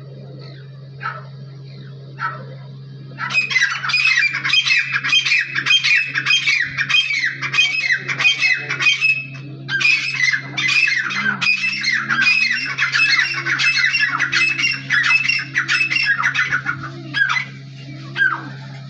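A crowd of caged birds squawking and chattering. A few separate calls give way about three seconds in to a dense, nonstop chorus of overlapping squawks, which thins back to single calls near the end. A steady low hum runs underneath.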